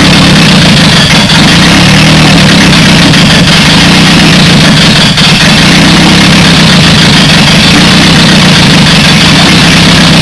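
Toyota 4A-C carburetted four-cylinder engine, just started out of the car, running loud and steady at a fast idle on full choke, with a vacuum leak from the unblocked brake booster line.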